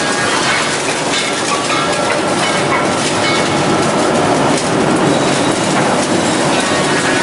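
FK-610BL semi-automatic finger joint machine running, a steady mechanical din and clatter as wooden blocks are fed along its conveyor.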